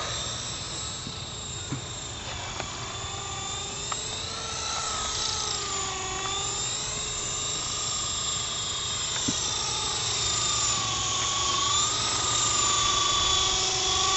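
Electric E-flite Blade CP RC helicopter whining, its motor and rotor pitch wavering up and down, growing gradually louder.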